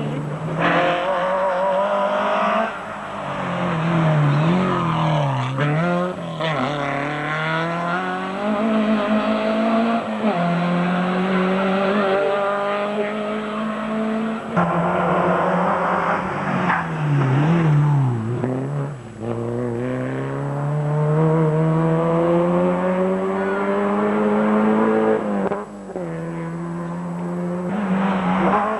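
Rally car engine driven hard on a stage. Its pitch climbs again and again as it accelerates up through the gears, and a few seconds in and again about halfway it dips and jumps in quick succession as it brakes and blips the throttle on the downshifts.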